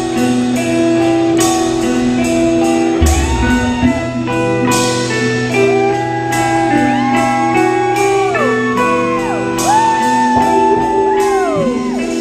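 Live band playing bluesy rock: a guitar lead whose notes bend and slide up and down over a steady bass line, with drum and cymbal hits keeping time.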